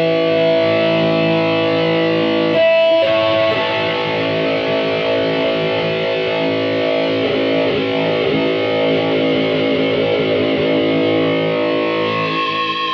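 Electric guitar played through distortion: held chords and notes ring out, a fresh chord is struck about two and a half seconds in, and some notes waver with vibrato later.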